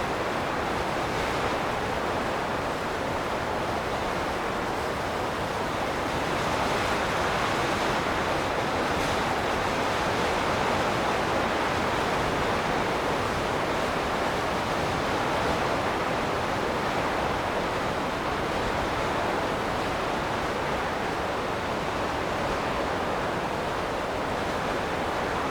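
Wind blowing as a steady rushing hiss, swelling slightly in the middle and easing off again.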